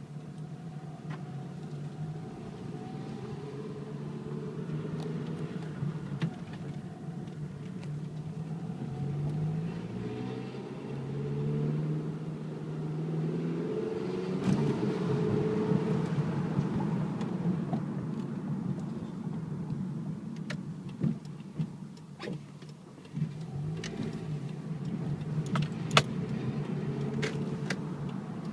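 A 2008 Mitsubishi Eclipse's engine running, its pitch rising in steps as the engine speeds up, with sharp rattling clicks and knocks coming and going, more of them in the second half. The rattle is the fault the owner is trying to track down.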